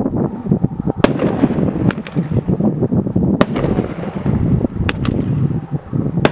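Aerial Striker consumer firework going off: a dense, continuous crackling, with sharp louder reports about five times over, one every one to one and a half seconds.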